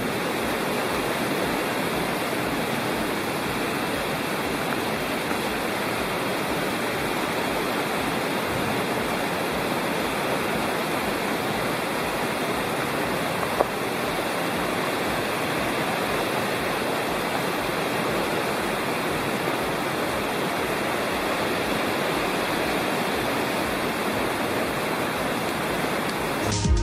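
Rushing water of a mountain creek, a steady, even rush of noise with no let-up.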